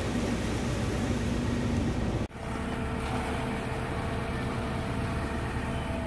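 Concrete mixer truck's diesel engine running steadily, with a steady hum. The sound breaks off sharply for an instant a little over two seconds in and then carries on.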